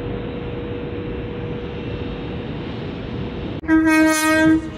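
Steady rumble with a faint constant tone from a train standing alongside, then, about three and a half seconds in, a sudden loud single-note horn blast lasting about a second from an approaching LNER Azuma train.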